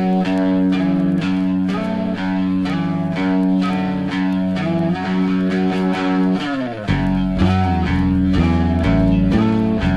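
Guitar-led rock background music; after a sliding guitar phrase, a heavy bass line comes in about seven seconds in.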